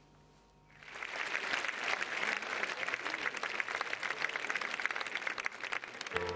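Large concert audience applauding, a dense, even clapping that swells in about a second in and holds steady. A piano begins playing just at the end.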